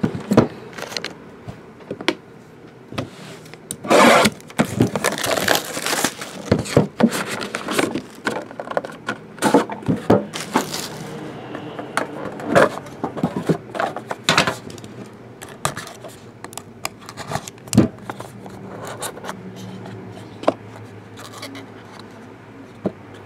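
Plastic shrink wrap crinkling and being torn off a sealed trading-card box, densest a few seconds in. Then irregular scrapes and taps as the box lid is lifted and the cardboard boxes inside are handled.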